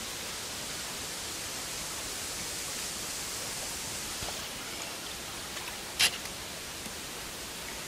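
Steady rushing of wind through trees and grass, a little weaker in the second half. A single sharp click about six seconds in.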